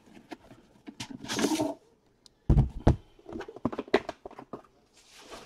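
The outer box is slid off a Panini Flawless aluminium briefcase with a sliding scrape, then set down with a heavy thump about two and a half seconds in. A run of light clicks and knocks follows as the case is handled.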